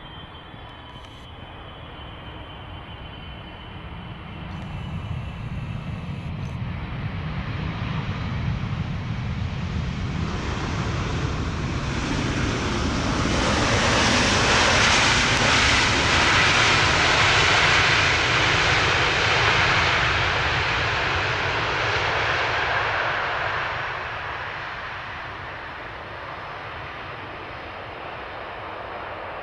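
Boeing 777-300ER's twin GE90-115B turbofans during the landing rollout: a deep roar and hiss that swells as the airliner rolls past, peaks about halfway through, then fades as it moves away down the runway.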